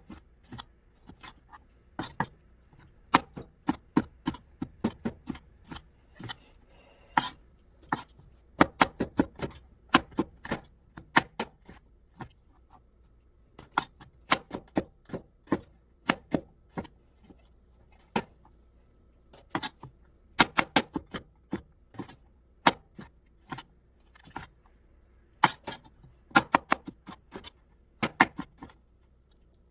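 Kitchen knife chopping on a cutting board: sharp knocks in short runs of several strokes, with brief pauses between runs.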